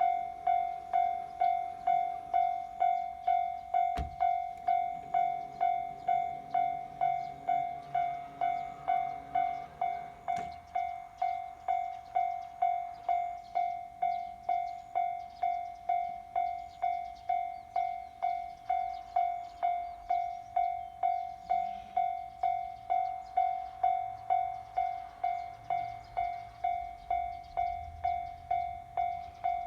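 Japanese railway level-crossing warning bell ringing in an even, repeating ding, just under two strikes a second, sounding for a train on its way. A low rumble rises under it near the end.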